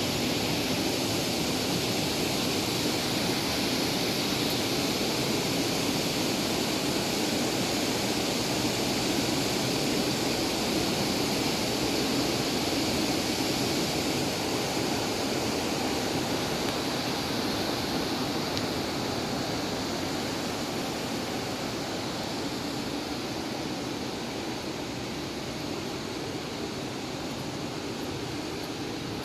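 Steady rushing of the Bhimkund waterfall, an even roar of falling water that eases off slightly in the last third.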